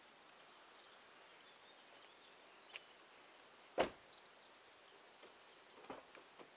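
Faint steady outdoor hiss with a few short clicks and knocks; one sharp knock about four seconds in is the loudest, and smaller clicks come near the end. A faint thin high tone comes and goes.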